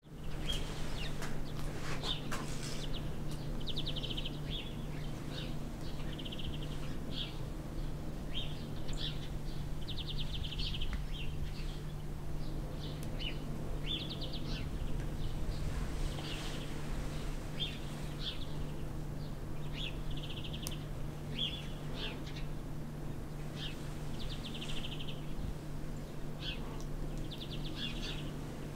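Small songbirds chirping and trilling, short high calls coming every second or two, over a steady low hum.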